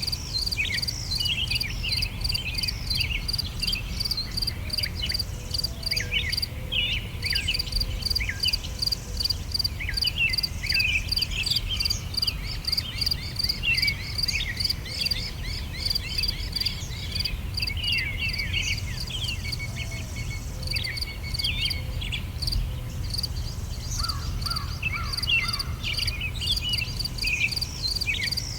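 Several songbirds chirping and trilling over a steady, rapidly pulsing insect chirp, with a constant low rumble underneath.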